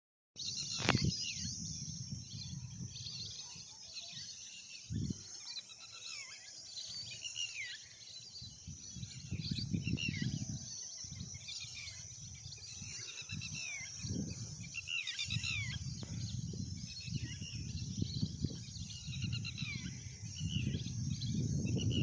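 Many birds calling at once, a steady chorus of short, high chirps that overlap. Gusts of wind rumble on the microphone now and then, strongest near the end.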